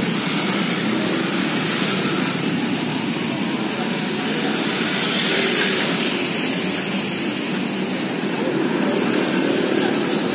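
Oil sizzling steadily in a wide flat pan as mini egg martabak fry, over the running noise of street traffic with motorbikes passing.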